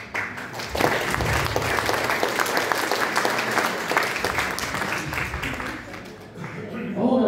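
Audience applauding: dense, even clapping that starts at once and dies away about six and a half seconds in.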